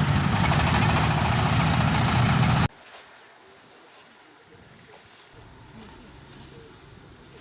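A loud, steady motor running, which stops suddenly a little under three seconds in, leaving a quiet outdoor background.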